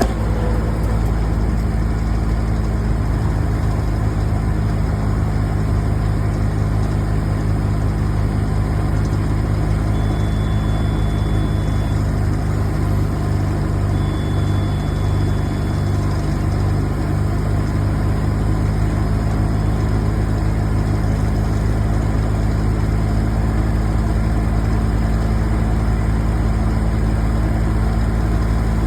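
A large engine idling steadily with an even low hum, typical of heavy machinery on a tree removal job.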